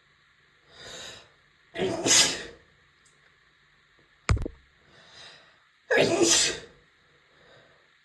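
A woman sneezing twice with allergies. Each loud sneeze follows a short breath in, and a sharp knock comes between the two sneezes.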